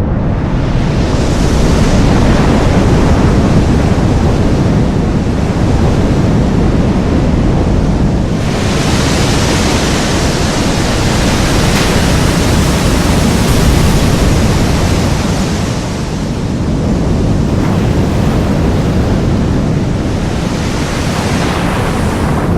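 Designed tsunami sound effect: a giant wave's rushing, surging water layered over a heavy low rumble. It grows brighter and hissier about eight seconds in, eases briefly around sixteen seconds, then swells again near the end.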